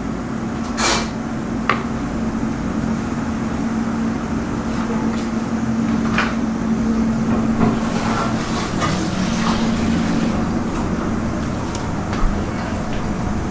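Steady hum of commercial kitchen machinery, with a few light clicks and knocks from work at the counter.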